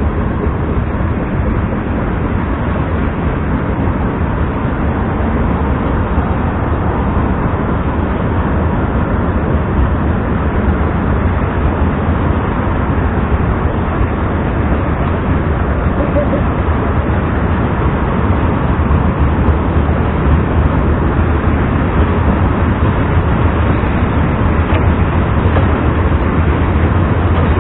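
Steady, loud low rumble with an even hiss above it, unchanging throughout: outdoor background noise with no distinct events.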